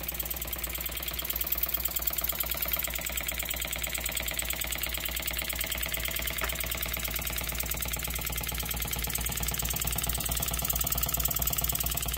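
Twin-cylinder rotary valve model steam engine running steadily on low-pressure compressed air, with a fast, even beat and a hiss of air.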